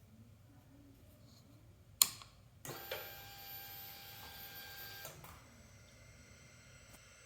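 2019 Triumph Speed Twin switched on: a sharp click about two seconds in, then a steady high electrical buzz lasting about two and a half seconds that stops with a small click, leaving a fainter steady whine. This is the buzzing the motorcycle makes after being switched on, whether by the key or the switch.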